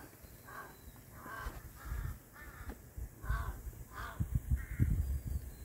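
A crow cawing over and over, about seven caws in an even string roughly two-thirds of a second apart, with low rumbling and knocks underneath.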